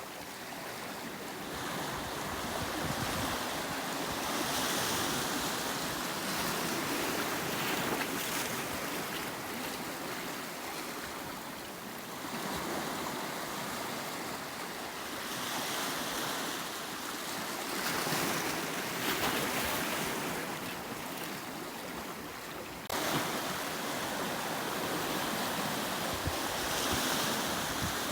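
Sea waves breaking and washing on a rocky shore, a continuous surf that swells and ebbs every few seconds, with a sudden step up in level a little before the end.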